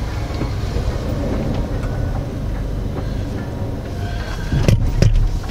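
2008 Mini Cooper S turbocharged four-cylinder heard from inside the cabin while driving: a steady low engine and road rumble, with a few sharp knocks a little before the end.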